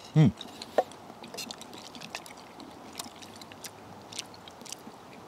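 A man chewing a hot mouthful of stew, with a short falling vocal sound just after the start, then faint scattered clicks and small rustles of eating and of a spoon working in the pot.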